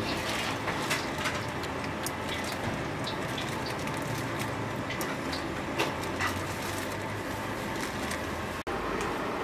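Wok cooking at a street food stall: a steady sizzle and burner noise with scattered sharp clinks and scrapes of a metal spatula against the pan, breaking off for an instant near the end.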